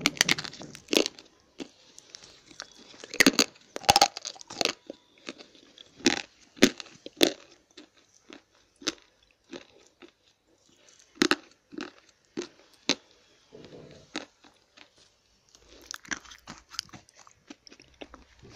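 Slate pencils being bitten and chewed close to the microphone: a string of sharp, irregular crunches of brittle slate, with short pauses between bites.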